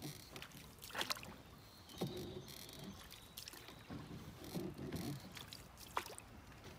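Wooden canoe paddle taking slow forward strokes: faint water swishes as the blade enters and pulls, about one stroke a second, with a few light knocks.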